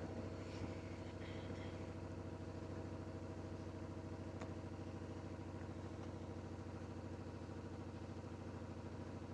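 Washing machine drum spinning at high speed in the spin cycle to spin the water out of the laundry: a steady motor hum with a fast, even pulse.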